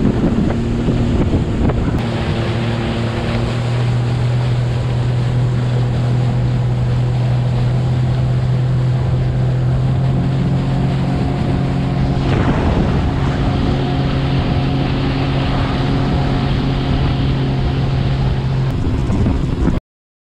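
2021 Sea-Doo FishPro jet ski running steadily at speed, its engine hum holding one pitch under the rush of wind on the microphone and water spray off the hull. The sound cuts off abruptly near the end.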